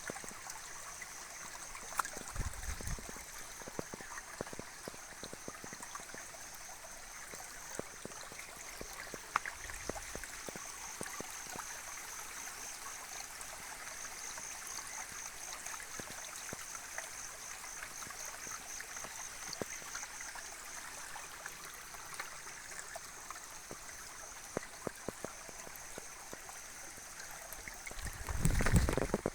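Flowing water of a hill stream or waterfall, a steady rushing and trickling, with a steady high pulsing trill over it. A low rumble comes about two seconds in and again near the end.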